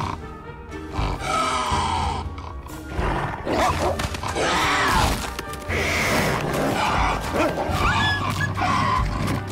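Film music with a lynx and a she-wolf growling and snarling as they fight.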